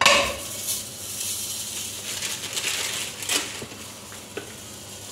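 Raw roti laid into a hot, oil-free pan, sizzling sharply as it meets the metal, the hiss fading over a few seconds with a few light clicks.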